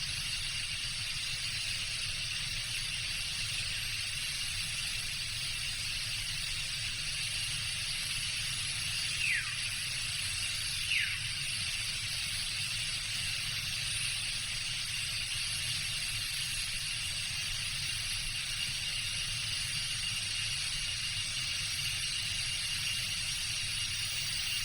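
Tropical jungle ambience: a steady, dense chorus of insects buzzing at several fixed high pitches over a low rumble. Near the middle come two short falling whistled calls, a few seconds apart.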